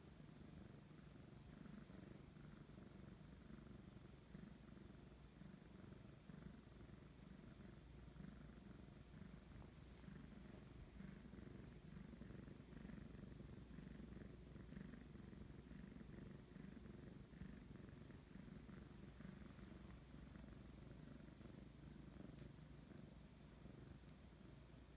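A tabby cat purring steadily and faintly: a low, even rumble.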